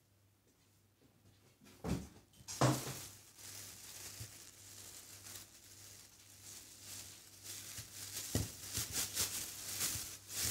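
Wrapping being handled and pulled open by hand, rustling and crinkling. There are two soft thumps about two seconds in and another near eight seconds, and the crinkling grows busiest near the end.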